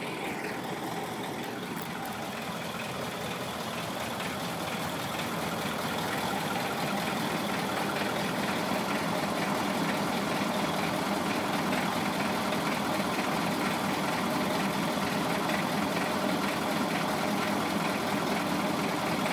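Heavy diesel truck engine idling steadily, slowly getting louder over the first several seconds and then holding level.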